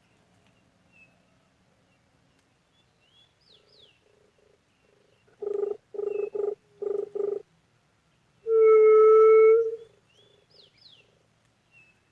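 A juriti (Leptotila dove) call whistle blown close by: four short low hoots, then about 8.5 s in one long steady low hoot, the loudest sound. Fainter low dove-like coos and a few quick high bird chirps sound in between.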